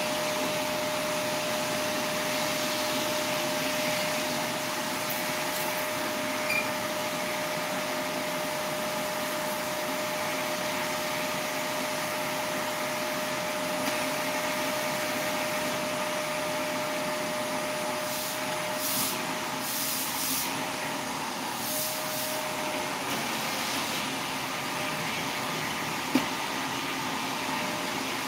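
Steady whooshing noise of a running machine, with a faint steady tone that drops out about three-quarters of the way through. A single sharp click sounds near the end.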